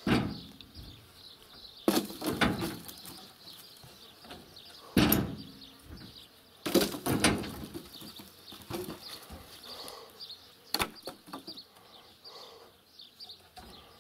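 Birch poles thrown down from a truck bed, landing on a pile of poles: about five loud wooden clatters a few seconds apart, with quieter knocks in between.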